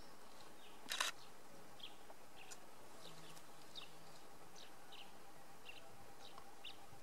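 Short, high bird chirps every second or so over a faint steady background, with one brief sharp click about a second in.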